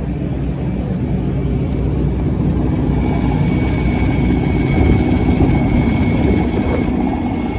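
Racing car engines running at low revs, including a single-seater rolling slowly into its grid slot. A steady high whine joins about three seconds in.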